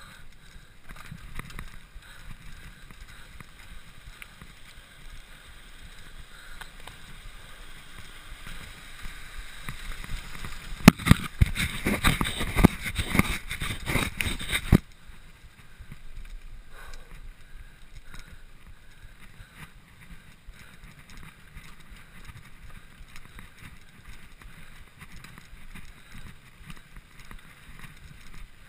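Mountain bike rolling fast down a dirt and gravel trail: tyre noise and wind on the microphone with the frame and chain rattling over bumps. About ten seconds in, a louder burst of dense clattering and knocks builds for several seconds, then cuts off suddenly.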